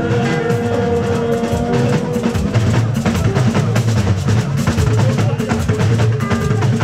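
Live fuji band music: busy talking-drum and percussion playing over bass guitar, with no singing.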